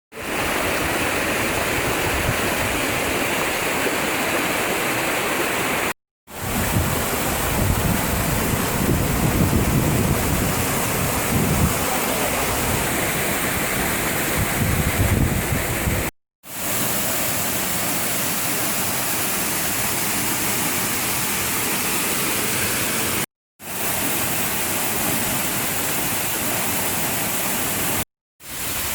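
Steady loud rush of a waterfall's falling water, cut abruptly into several separate shots a few seconds to ten seconds long. In one of the shots the rush has a heavier low rumble.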